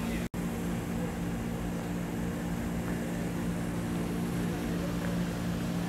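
Steady low hum of air-conditioner outdoor units, a few steady low tones over a dull drone. The sound cuts out for an instant just after the start.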